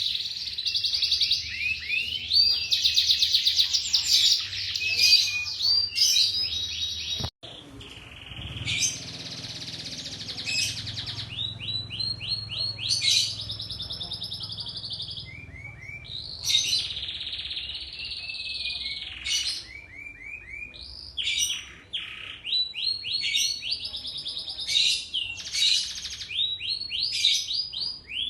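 Domestic canary in full song, a long run of fast, high-pitched trills and rolls. About seven seconds in the recording breaks off sharply and resumes, with a low hum under the song for a while after.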